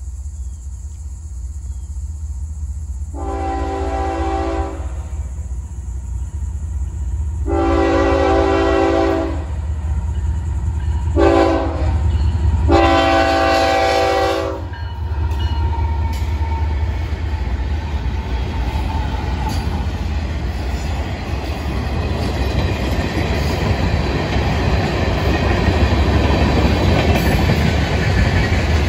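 A Florida East Coast GE ES44C4 diesel locomotive sounds its air horn in the grade-crossing pattern: long, long, short, long. After the horn stops, the locomotives' low engine rumble gives way to the growing, steady rolling and clatter of freight car wheels passing over the crossing.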